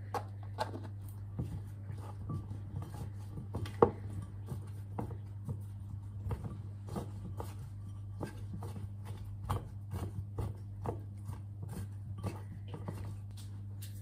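Irregular clicks and knocks of a utensil and containers against a ceramic mixing bowl as ingredients are added and stirred, with one louder knock about four seconds in, over a steady low hum.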